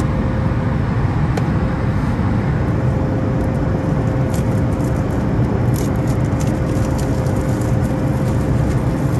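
Steady low rumble of a moving vehicle heard from inside, with a faint steady tone running through it.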